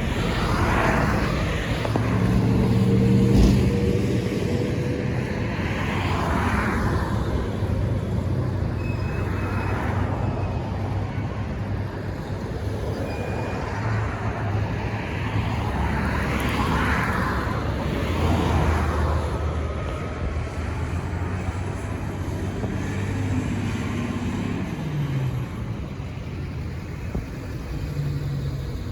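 Heavy diesel fire truck engine running with a steady low rumble while cars pass on the road, about five of them, each rising and fading as a swish of tyre noise. Near the end the engine note drops in pitch.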